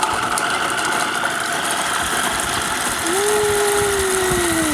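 Electric blender running steadily as it grinds garlic and chillies. About three seconds in, a steady higher tone joins the motor noise and sags slightly near the end.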